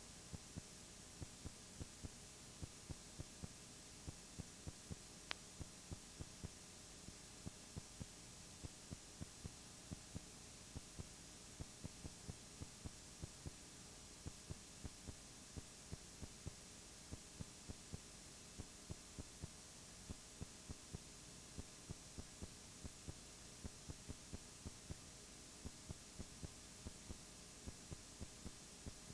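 Near silence: a steady hiss and hum with faint clicks recurring a few times a second.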